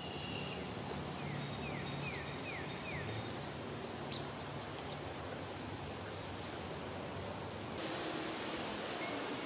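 Quiet outdoor evening ambience, a steady soft hiss. About a second in, a bird calls a quick run of about five short falling chirps, and a single sharp click comes about four seconds in.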